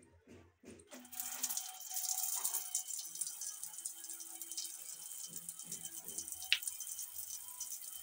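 Overhead shower running, water spraying down onto a wire birdcage and the concrete floor around it; the spray starts about a second in and then runs steadily. One brief sharp sound about six and a half seconds in.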